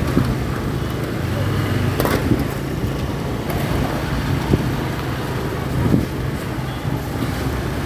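Motorcycle engine running steadily at low speed through slow street traffic, heard from the rider's seat, with a few short sharp clicks.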